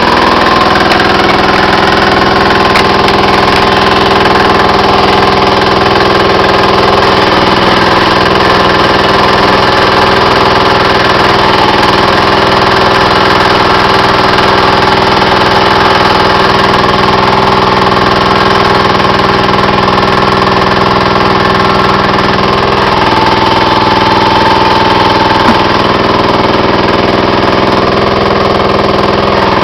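A small engine running steadily at a constant speed, loud and close, a continuous hum with several fixed tones that do not rise or fall.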